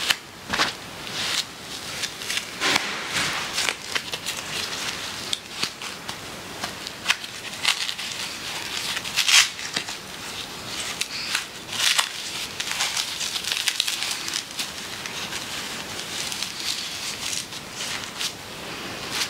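Disposable nappy crinkling and rustling in irregular bursts as hands rub over a baby's hips and legs.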